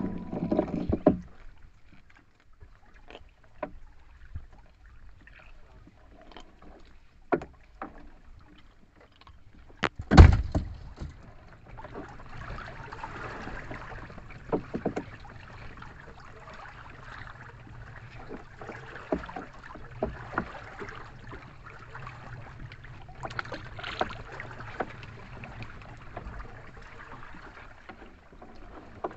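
Fishing net being hauled by hand over the bow of a small boat: scattered knocks and thumps of net and hands against the hull, with one loud thump about ten seconds in. From about twelve seconds on there is a steady wash of water and wind noise.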